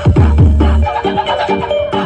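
Loud electronic dance music from a big carnival sound system: deep bass hits that slide down in pitch, about two a second, until the bass cuts out a little before halfway, leaving higher synth notes.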